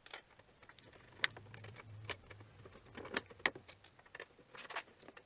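Faint, scattered light metallic clicks and taps from an aluminium plate and a small metal marking tool being handled, with a few sharper clicks about a second in and again around three seconds.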